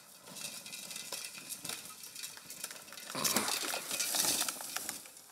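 Tyres of a small pedal bike crunching over a dirt and leaf-litter trail, with scattered clicks and rattles from the bike, louder as it rides close past about three seconds in.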